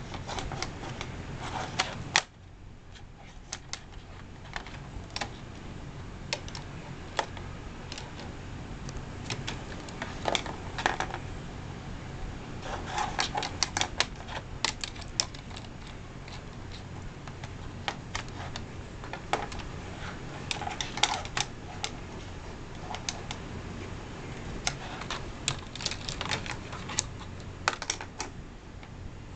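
Irregular light clicks and taps, some in quick clusters, as a kitten bats a plastic pen around a desktop, with a steady low hum underneath.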